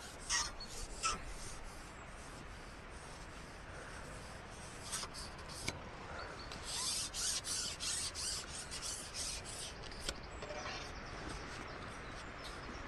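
Carbon fishing pole being shipped back, its sections rubbing and scraping as they slide through the hands, with a few light knocks and a run of quick scraping strokes about halfway through.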